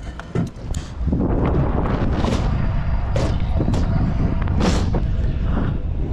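Continuous rolling rumble, from riding on a concrete skatepark, with several sharp clacks and scrapes.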